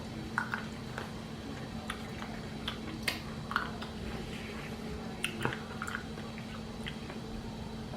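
A person chewing food close to the microphone, with soft wet mouth clicks scattered irregularly through, over a faint steady hum.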